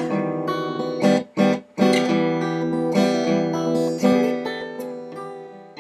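Background music: an acoustic guitar strumming chords that ring on between strokes, with a brief break about a second and a half in.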